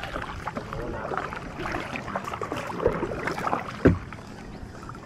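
Small outrigger boat being paddled: water sloshing along the hull with the paddle strokes, and one sharp knock about four seconds in, the loudest sound.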